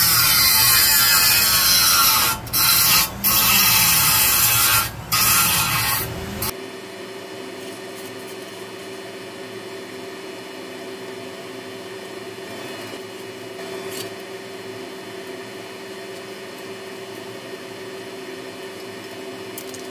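A handheld power grinder grinding thick burrs off the metal housing of a multi-nozzle gas wok burner. The grinding is loud, breaks off briefly three or four times, and stops for good about six seconds in. After that only a quiet steady hum remains.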